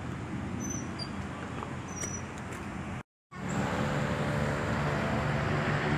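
Steady low mechanical hum of outdoor ambience, with a few faint short high chirps. The sound cuts out completely for a moment about three seconds in, then returns as a louder, steadier hum with a low drone.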